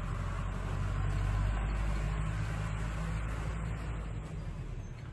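Low rumble of a motor vehicle engine that swells about a second in and fades out after about four seconds.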